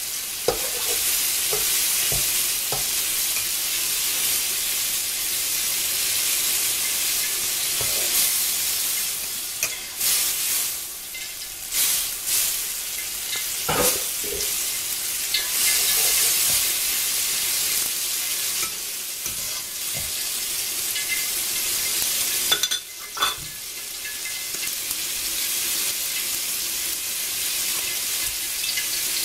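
Tomato and egg stir-fry sizzling in a frying pan, with a spatula stirring through it and knocking or scraping against the pan now and then.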